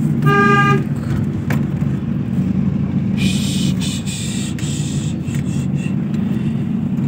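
Car driving on a winding mountain road, with steady engine and road rumble. A short, steady pitched tone sounds just after the start, and a higher hiss joins about three seconds in.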